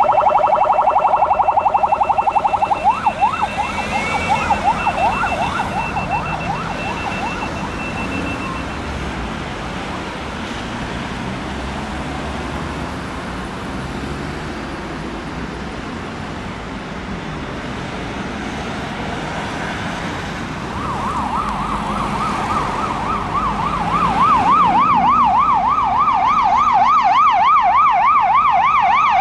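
Emergency vehicle siren on a rapid up-and-down yelp that slows into wider sweeps a few seconds in and fades out, leaving steady street noise. About two-thirds of the way through, another fast yelping siren starts and grows louder toward the end.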